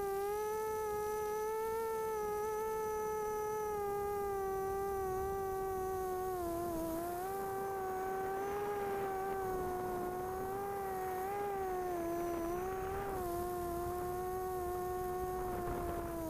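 DRQ250 Mini-D racing quadcopter's motors and propellers whining steadily as heard from its onboard camera, the pitch wavering slightly as the throttle changes. A rush of air noise joins in around the middle and again near the end.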